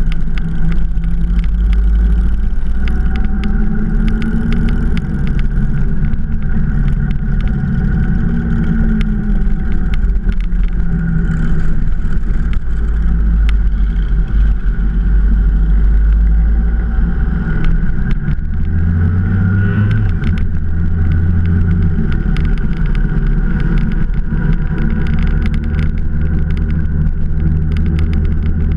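Motorcycle engine running at road speed, with its pitch shifting as the throttle changes and a brief rise about twenty seconds in.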